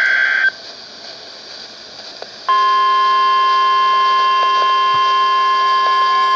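The tail of a SAME digital header burst from NOAA Weather Radio, a brief buzzy data tone that cuts off half a second in, then about two seconds of radio hiss. About two and a half seconds in, the weather radio's steady 1050 Hz warning alarm tone starts, loud and unchanging, announcing a severe thunderstorm warning.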